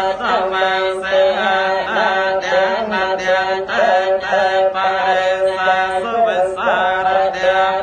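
Khmer Buddhist chanting: voices intoning a continuous, melodic chant with long held notes and sliding pitch.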